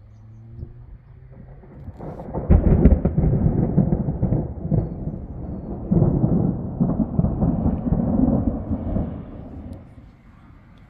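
A long, low rumbling noise that swells up about two seconds in, surges unevenly for several seconds and dies away near the end.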